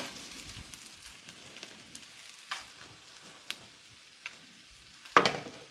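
Bacon and scrambled eggs frying in a pan with a faint, steady sizzle, a few light clicks, and a louder clatter near the end.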